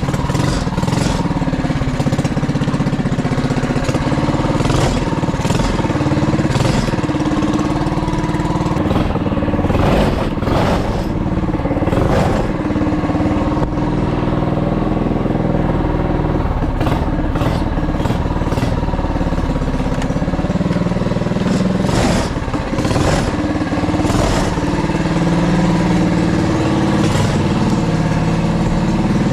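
Go-kart's 212 cc single-cylinder small engine running steadily, its pitch rising and falling as the throttle changes. It runs after its stuck carburettor float has been freed.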